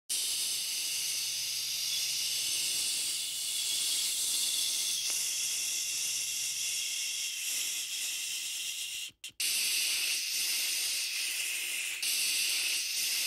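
Steady high-pitched hiss like static, which cuts out briefly about nine seconds in and then resumes.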